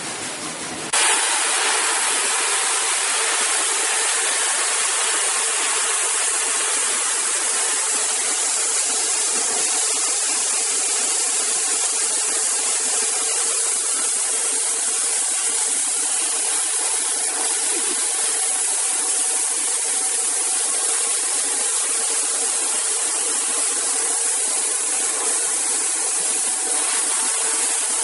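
Self-service rice polishing machine running, milling brown rice into white rice: a loud, even rushing hiss with a faint steady hum underneath, starting abruptly about a second in.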